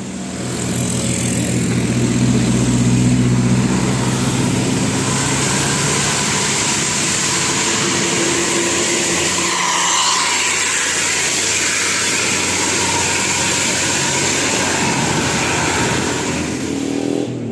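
A large vehicle's engine passing close with tyre and traffic noise, a steady drone that fades into road noise partway through.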